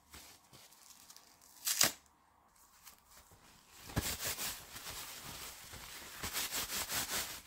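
Disposable diaper crinkling and rustling as it is handled: one sharp rip about two seconds in, then a run of crinkles and rips from about four seconds on.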